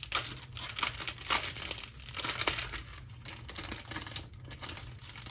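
Wrapping crinkling and tearing in irregular crackly bursts as a journal is unwrapped by hand.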